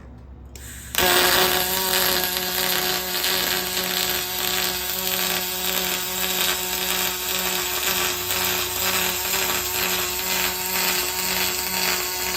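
A Fronius welder's arc on aluminium: a short hiss, then the arc strikes abruptly and buzzes with a steady tone and crackle for about eleven seconds. Near the end its pitch drops as the weld ramps down to its turning-off stage and the arc stops.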